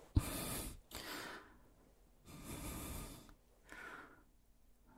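A man breathing close to the microphone, about four slow, audible breaths in and out, with a small mouth click just before the first.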